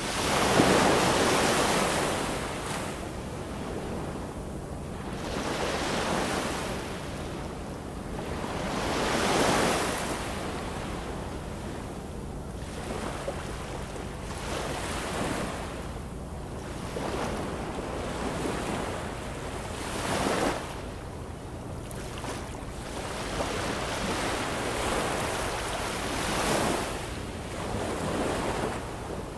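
Ocean waves washing ashore, a steady rush that swells and ebbs in slow surges every few seconds.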